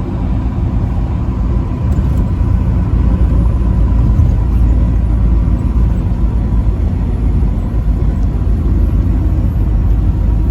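Truck driving on an interstate highway: a steady low rumble of engine and road noise.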